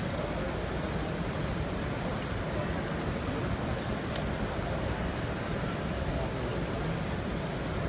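Steady background hubbub of a busy exhibition hall: many visitors' voices blended into an even rumble.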